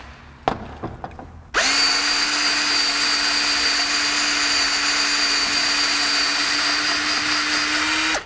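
Cordless drill with a 1/4 inch bit drilling out a stripped bolt hole in an aluminium T-5 transmission case, to size it for a Helicoil thread insert. After a couple of clicks, the drill starts about a second and a half in, runs steadily at one even speed for about six and a half seconds, then stops.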